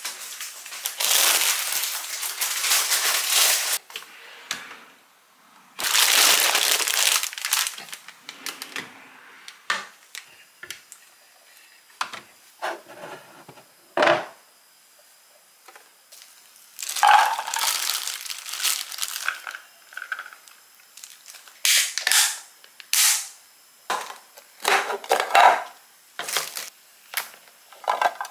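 Plastic bags and food packaging rustling and crinkling in several long bursts, with scattered short rustles and light clicks in between.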